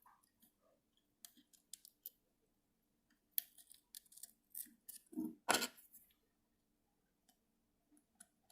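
Small clicks and scrapes of the controller's plastic parts being handled and fitted together, with a louder scraping rub about five seconds in.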